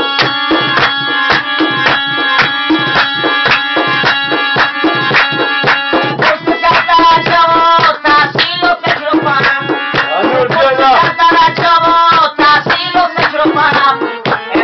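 Live traditional Badakhshani music: a harmonium sounds steady held notes and melody over fast, dense hand-drum strokes.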